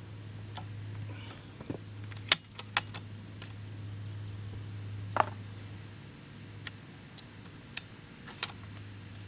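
Several sharp clicks and knocks, a few seconds apart, over a steady low hum.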